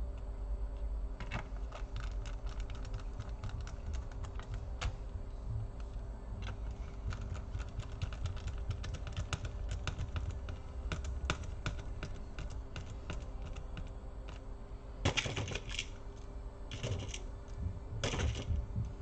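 Small laptop screws being driven back into a metal bottom plate with a precision screwdriver: a steady run of light, irregular ticks and clicks, with a few short louder scraping rustles near the end.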